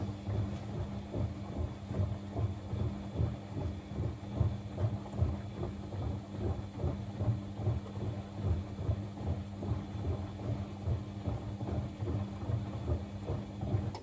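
Bosch WFCX 2460 washing machine tumbling a blanket in the wash phase: a steady motor hum with the drum turning, and the heavy wet load thudding about twice a second.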